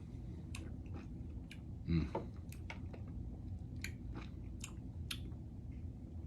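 Soft wet mouth clicks and lip smacks from a man tasting a sip of bourbon, with a brief louder low sound about two seconds in.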